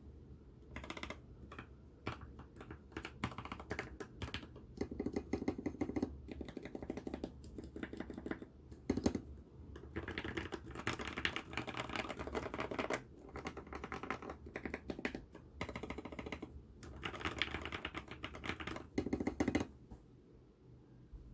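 Typing on a Nullbits Nibble 65 mechanical keyboard fitted with lubed Durock Lavender switches on an FR4 plate and PBT SA keycaps. Fast runs of key clacks come in bursts with short pauses, and the typing stops near the end.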